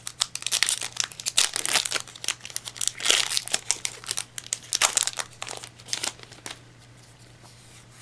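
Foil wrapper of a Yu-Gi-Oh booster pack crinkling as it is torn open and handled, a rapid run of crackles that dies away about six and a half seconds in.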